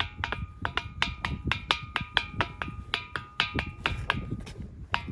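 Gaval Dash, the 'tambourine stone' of Gobustan: a large rock struck with a small hand-held stone in a quick series of knocks, about four or five a second. Each knock gives a short, hollow, drum-like ringing tone.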